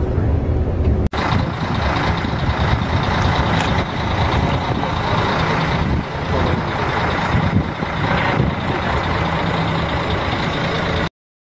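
For about a second, coach engine and road drone from inside the moving bus. Then, after a cut, the steady outdoor din of lorry engines and traffic at a motorway service area, with a faint steady whine running through it. The sound cuts off abruptly near the end.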